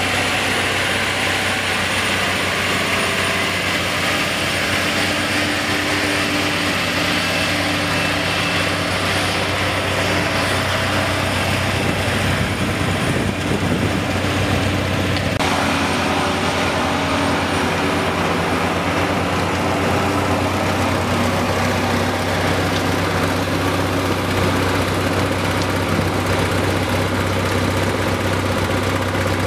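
Steady machine hum: a continuous low engine-like drone with a thin high whine above it, the pitch pattern shifting slightly about fifteen seconds in.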